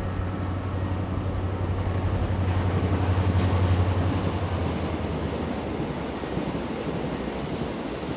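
Distant diesel-hauled freight train of bulk cement tank wagons passing, its wheels rolling over the rails under the low, steady drone of the diesel locomotive's engine working hard. The engine drone grows to its loudest about three to four seconds in, then drops away just before the five-second mark, leaving the rolling noise of the wagons.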